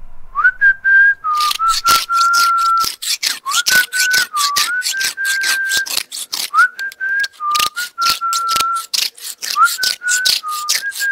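A tune whistled in short phrases of held notes with little upward slides, over a run of rasping strokes, about three a second, from a knife blade being scraped back and forth on a concrete block to sharpen it.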